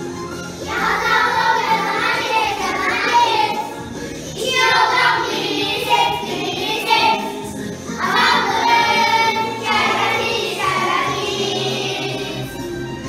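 A group of children singing a song together over instrumental backing music.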